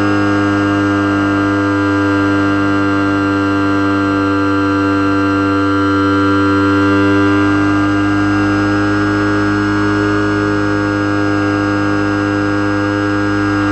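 Electric motor and propeller of an RC Eagle II trainer, heard from a camera mounted on the plane: a steady, loud whine holding one pitch, swelling slightly about halfway through.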